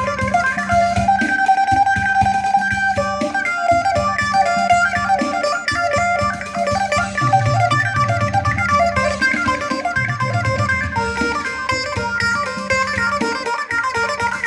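Electric phin (Isan Thai lute) played through an effects unit: quick picked melody over a steady drone string. Lower notes join twice in the middle.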